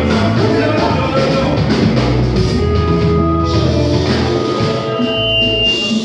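Live band playing a song, with electric bass guitar and drum kit.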